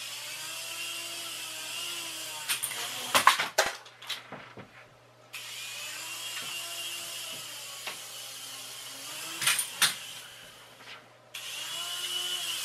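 A mini infrared remote-control helicopter's tiny electric rotor motors whirring, the pitch rising and falling with the throttle. The whirring stops and restarts twice. Sharp knocks and clatters come a few seconds in and again about two thirds through, as the little helicopter bumps into things.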